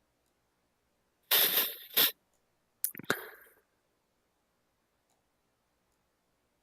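A person sniffling: two short, noisy sniffs about a second apart, the second starting with a sharp click.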